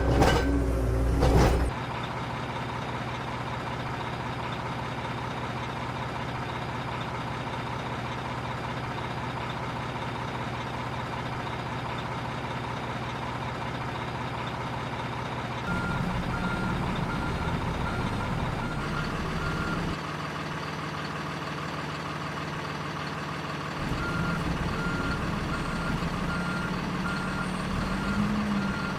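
Remote-control construction truck's sound module playing a steady engine sound, with a short louder burst at the start. A reversing beeper beeps steadily about halfway through and again through the last few seconds.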